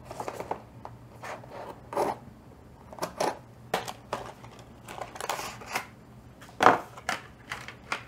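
Paperboard product box being cut open and unpacked by hand: irregular clicks, scrapes and rustles of the blade, box flap and inner tray, with one sharper knock about two-thirds of the way through.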